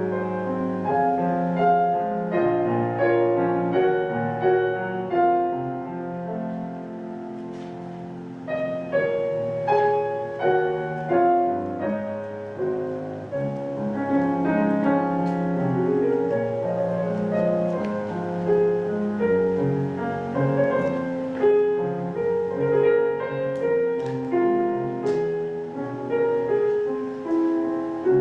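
Grand piano playing a flowing piece of many notes. It drops softer for a couple of seconds about a quarter of the way through, then fills out again.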